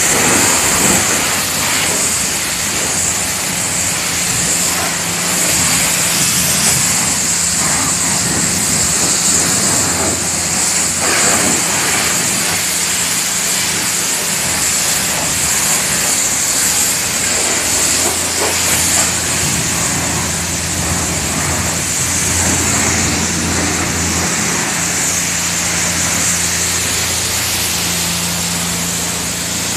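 Coin-operated pressure washer spraying, a steady high hiss of the water jet over the low even hum of its pump motor.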